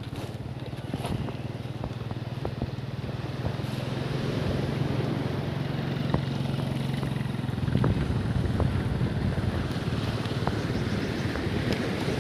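A small engine running steadily, a low hum that grows louder about four seconds in and fades out around eight seconds in. Underneath are wind on the microphone and the sea washing on the shore.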